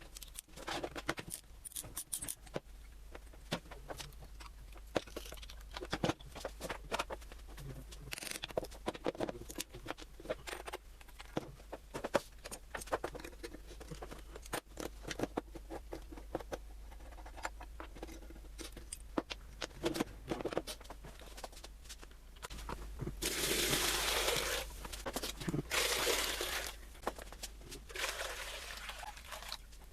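Metal parts of a rusty hand-cranked grinder being handled and worked on: irregular clicks, taps and knocks, with two stretches of harsher scraping about 23 and 26 seconds in.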